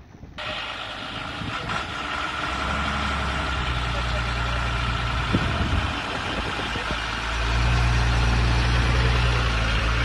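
Fire truck's engine idling, a steady low hum over a constant hiss; the hum drops back briefly past the middle and returns louder for the last couple of seconds.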